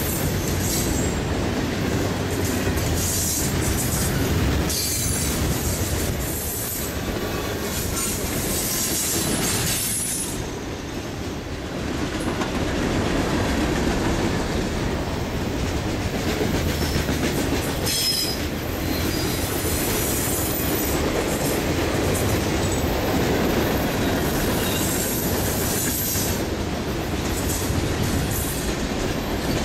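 Freight train cars rolling past with a steady rumble and the clickety-clack of wheels over the rails, with short high-pitched wheel squeals now and then.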